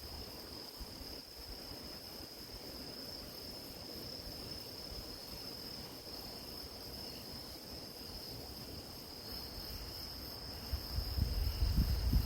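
Crickets and other grass insects chirring in a steady, high-pitched drone. Near the end a low, gusty rumble of wind on the microphone comes in under it.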